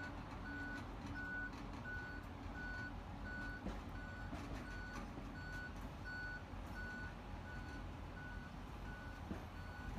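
A vehicle's reversing alarm beeping steadily, one high beep roughly every 0.7 seconds, over a steady low engine rumble.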